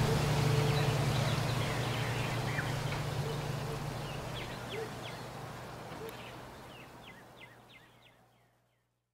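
Small birds chirping in scattered short calls over a low steady hum, the whole fading out to silence near the end.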